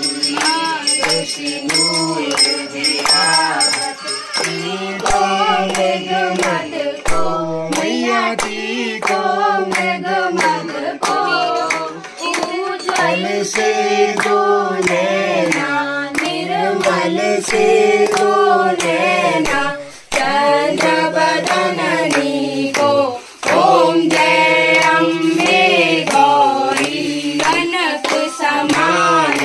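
A song, singing over music with a steady clapped beat of about two claps a second; the singing breaks off briefly twice past the middle.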